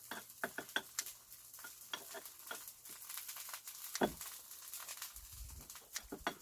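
Oil sizzling and crackling in a frying pan as a wild chive pancake (buchujeon) fries, with irregular pops and a louder knock about four seconds in.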